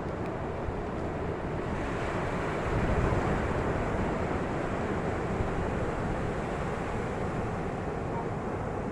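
Ocean surf washing ashore as a steady rush. A wave swells about two seconds in and is loudest near three seconds, with some wind noise on the microphone.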